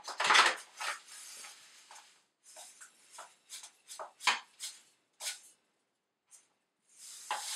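A paper sugar bag crinkling as sugar is shaken out of it in short goes into a Thermomix's steel mixing bowl, making a string of brief scratchy rustles, with louder crinkling of the bag at the start and near the end.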